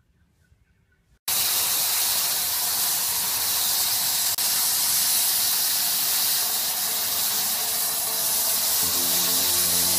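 Paint spray gun spraying homemade chalk paint: a loud, steady hiss that starts suddenly about a second in and drops out for an instant about four seconds in. Music comes in near the end.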